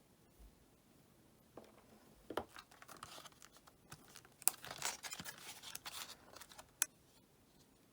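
Crinkly tearing and scratching with several sharp clicks as an iPhone 8 home button is worked free of its adhesive and pushed out through the front of the screen. The sounds start about a second and a half in and end with a single sharp click near the end.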